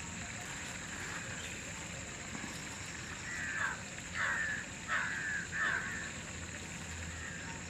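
A crow cawing four times in quick succession, each call short and falling in pitch, over a steady high-pitched whine.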